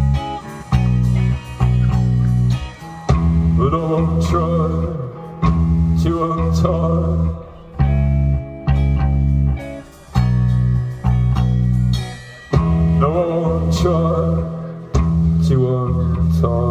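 A live band playing an instrumental passage at the end of a song: guitar over a loud, sustained bass line, with a wavering melody line rising above it twice.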